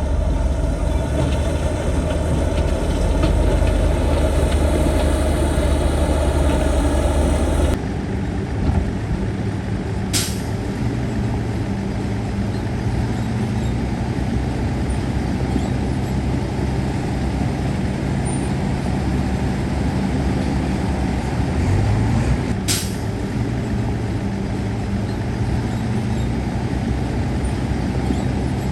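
Heavy diesel engines of earthmoving machinery running steadily. The sound changes abruptly about eight seconds in. Two short, sharp hisses, like an air brake, come about ten and twenty-three seconds in.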